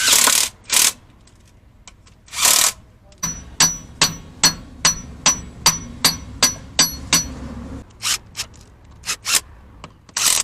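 Hammer tapping on a steel gearbox part, about a dozen evenly spaced ringing metal strikes at roughly three a second, followed by a few lighter irregular knocks: a shaft or gear being driven into place during reassembly of the gearbox.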